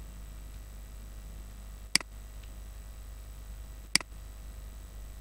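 Two sharp computer mouse clicks about two seconds apart, over a low steady hum.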